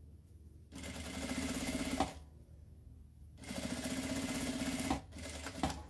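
Industrial lockstitch sewing machine stitching a seam in two runs of about a second and a half each, with a pause between them, then a few light clicks near the end.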